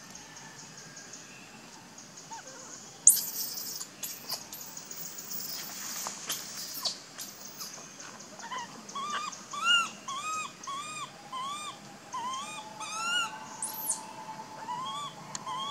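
Baby long-tailed macaque crying: a run of short arched whimpering calls, about two a second, from about eight seconds in, after a few very high, sharp shrieks in the first half. A steady high insect buzz runs underneath.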